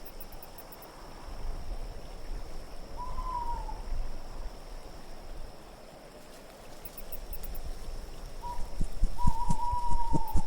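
Low wind ambience with an owl hooting: one short, slightly falling hoot about three seconds in and a longer one near the end. Soft low thumps start up near the end as well.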